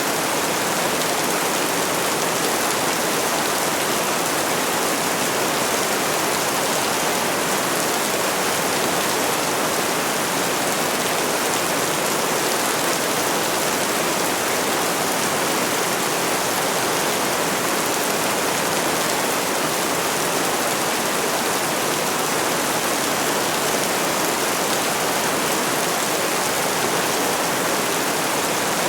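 Steady rainfall: an even, unbroken hiss of rain with no single drops standing out and no thunder.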